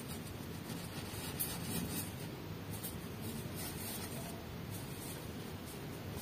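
Knit gloves rubbing and squeezing a soft foam squishy toy, giving faint, scratchy rustles that come and go in short strokes over a low background hiss.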